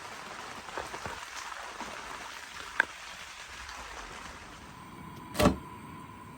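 Steady hiss of rain, with a few light knocks, a sharp click about three seconds in and a louder single thump about five and a half seconds in.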